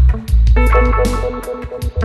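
Live reggae band playing: a heavy bass line under guitar and drums, with a sustained chord entering about half a second in.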